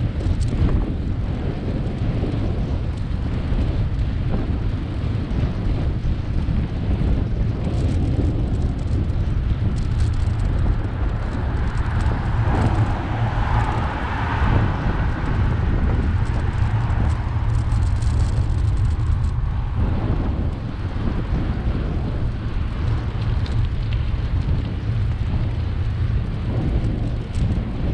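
Wind buffeting a bike-mounted camera's microphone during a bicycle ride, a steady low rumble, with a car passing on the road about halfway through as a louder rushing swell that fades away.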